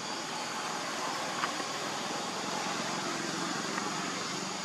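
Steady outdoor background noise, an even hiss with no distinct source, with one faint click about a second and a half in.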